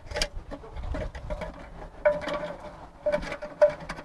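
Plastic flush-valve parts of an IFØ Aqua toilet cistern clicking and tapping as they are handled and pushed back onto their guide, with a couple of short squeaks of plastic rubbing about two and three seconds in.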